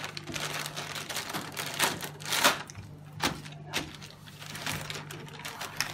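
Clear plastic zip-lock bags crinkling and rustling in irregular bursts as hands handle them and the plastic tubing inside, the loudest crackle about two and a half seconds in, over a steady low hum.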